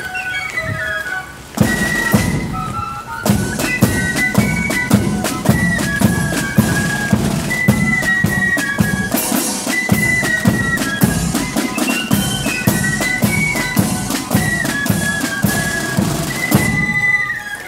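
Marching flute band playing a tune: a unison melody of flutes over rattling side drums and a beating bass drum, with a short break about a second and a half in before the tune carries on.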